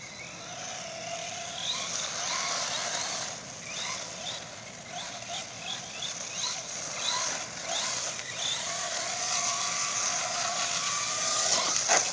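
A radio-controlled truck driving at a distance, its motor whining up and down in many short revs over a steady hiss.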